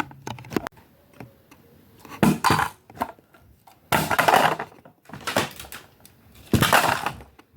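Plastic Nerf blasters being handled and moved about: several clattering, rustling bursts with small clicks between them.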